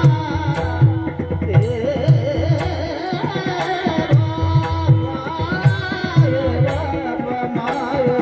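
Male voice singing a long, ornamented devotional melody over a steady beat of mridang drum strokes, with sharp clicks keeping time.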